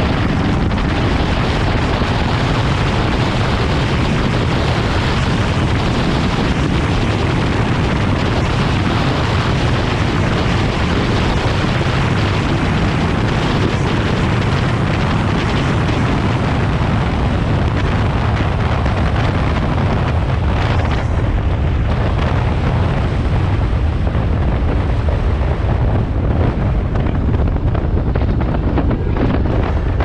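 Heavy wind noise buffeting the microphone of an electric motorcycle ridden at highway speed: a loud, steady whoosh with a deep low rumble.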